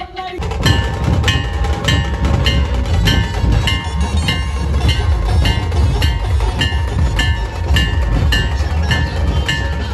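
Dhol-tasha ensemble playing: deep dhol drums beating hard under rattling tasha drum rolls. A hanging metal cylinder is struck in a steady ringing clang about every two-thirds of a second.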